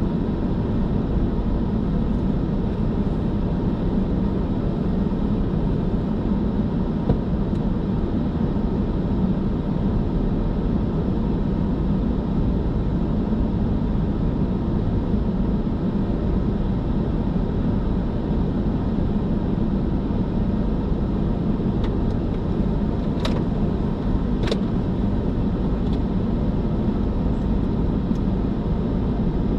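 Steady road noise of a car cruising on a highway: constant tyre and engine rumble, with two short clicks about three-quarters of the way through.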